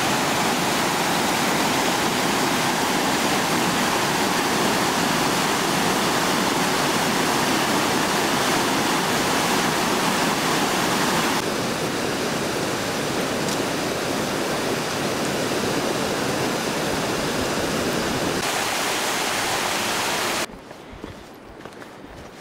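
Mountain stream rushing over boulders, a loud, steady wash of water that changes level abruptly a couple of times. About twenty seconds in it drops away to much quieter outdoor sound.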